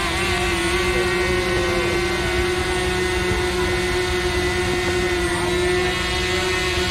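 Quadcopter drone hovering close by, its propellers giving a steady, even-pitched whine with many overtones.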